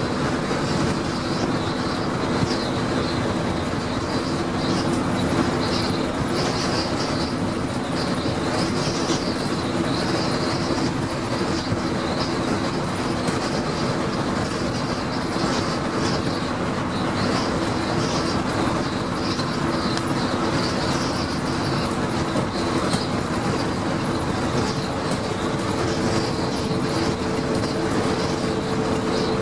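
Interior noise of a Daimler Fleetline double-decker bus at cruising speed, heard on the upper deck: the steady drone of its Leyland engine and transmission with road noise and repeated light rattling from the bodywork. A higher steady whine joins in about 25 seconds in.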